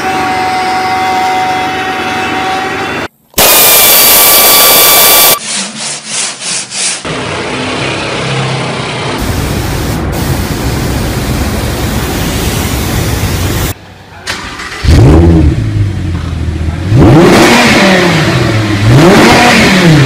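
A string of abruptly cut engine sounds, ending with an engine revved up and back down three times.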